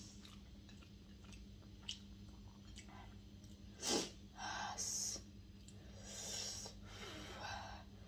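A person eating by hand: chewing and mouth noises with several breathy puffs of air, the sharpest a short one about four seconds in, over a steady low hum.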